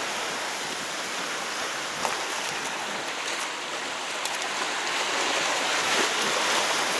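Steady rushing noise of moving water at the shore, with a faint click about two seconds in.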